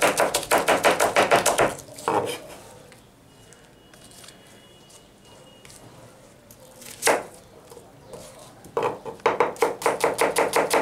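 Chef's knife rapidly chopping vegetables on a plastic cutting board, about six quick knocks a second, finely shredding cabbage. The chopping stops about two seconds in, with a couple of single knocks in the pause, and starts again near the end as an onion is cut.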